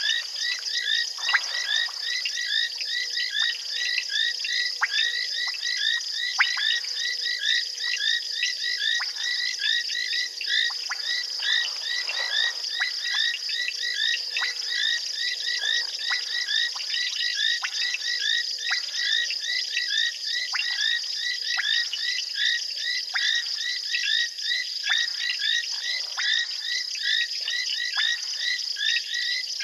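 A dense frog chorus at a waterhole: many frogs calling at once, their short chirping notes overlapping in a steady din, with sharper clicks every second or so.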